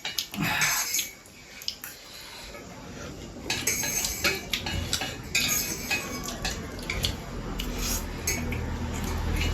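Metal utensils clinking and scraping against a bowl as instant noodles are stirred and eaten, in a run of short, sharp clicks that grows busier a few seconds in.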